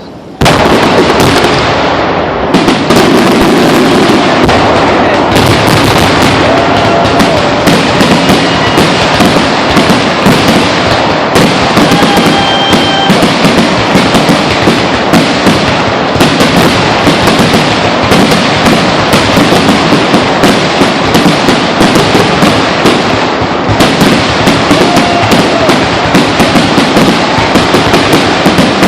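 Fireworks at close range: a dense, continuous barrage of bangs and crackles that starts abruptly about half a second in, with a few brief whistles among them.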